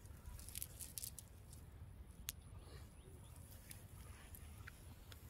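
Faint scattered rustles and small clicks of a wet nylon cast net being handled as a fish is picked from the mesh, with one sharper click about two and a half seconds in. A low rumble sits underneath throughout.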